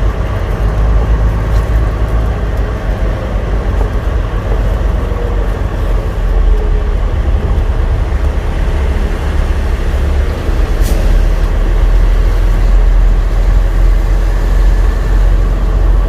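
Semi truck's diesel engine and road noise heard from inside the cab: a steady low rumble, with one short sharp tick about eleven seconds in.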